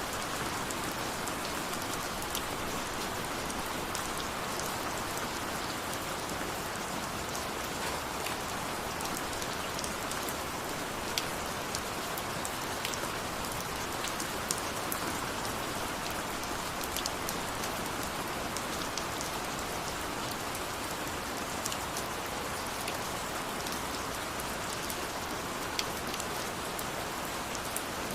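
Steady rain falling in an even hiss, with scattered sharp drop ticks and a few louder single drop hits.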